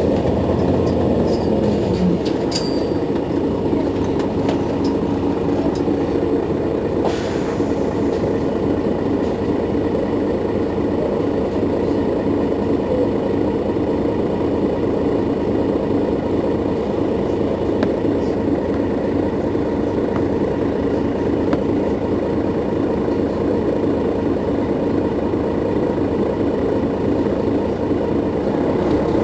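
Mercedes-Benz Citaro facelift city bus idling steadily at a stop, its rear-mounted diesel engine running with an even hum.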